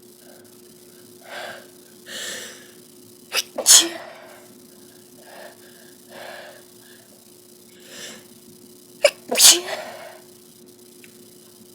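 A person sneezing twice, about six seconds apart. Each sneeze opens with a short sharp catch followed at once by the full burst, with softer breaths leading up to it and in between.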